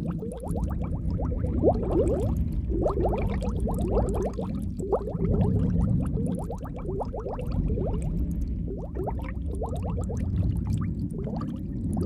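Underwater bubbling: clusters of small bubbles making quick, rising blips over a steady low rumble of water.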